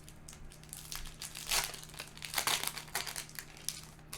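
Foil Yu-Gi-Oh! booster pack wrapper crinkling in irregular bursts as it is handled and opened.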